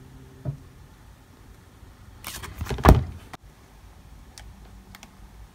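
A paperback cookbook being handled: pages rustle and the cover knocks as the book is closed and turned over, loudest about three seconds in, with a few light clicks before and after.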